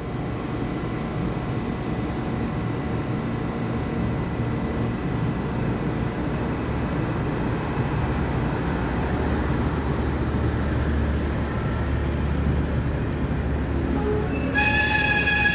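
DR3000 diesel multiple unit pulling into an underground station platform, its engine and wheel rumble steadily building as it comes alongside. About a second before the end, a loud high tone with a slowly sinking pitch starts up over the rumble.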